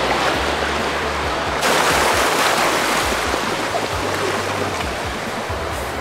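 Shallow surf washing in over the sand, with a wave surging up about a second and a half in, and music playing underneath.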